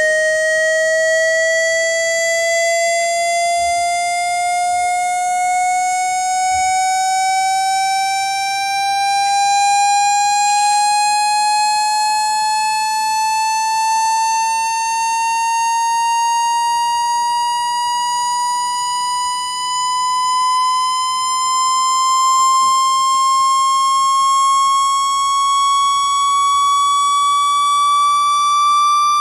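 Synthetic water-ejection tone for clearing water from a phone speaker: a loud, buzzy electronic tone with many overtones, sliding slowly and steadily upward in pitch by about an octave.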